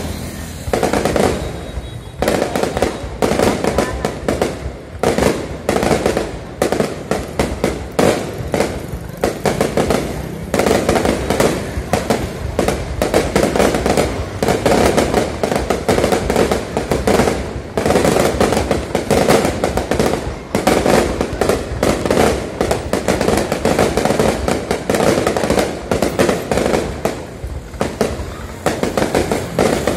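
Fireworks display: aerial shells launching and bursting overhead in quick succession, a dense, continuous crackle of bangs.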